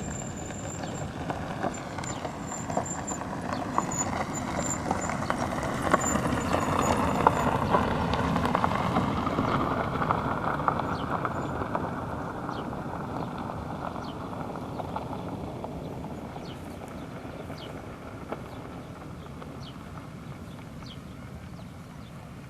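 A 3TE10M diesel locomotive passing, its engine and running gear growing louder to a peak about seven seconds in and then slowly fading, with many sharp clicks of wheels on the rails.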